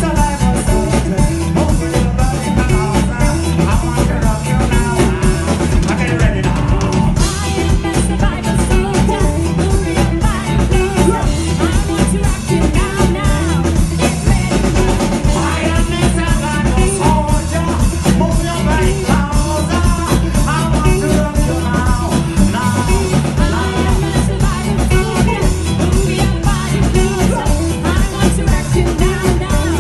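Live reggae band playing: electric guitar, keyboard, drum kit and bass guitar under sung vocals.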